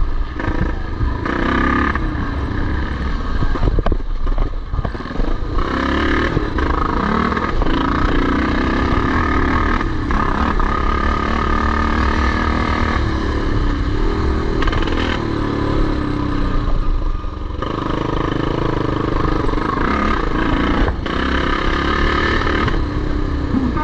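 Vintage motocross bikes racing, several engines revving up and down and overlapping.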